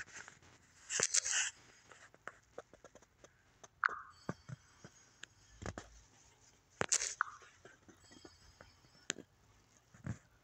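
Inside a small elevator car: scattered faint clicks and brief rustles of a hand-held phone, with two short beeps about three seconds apart.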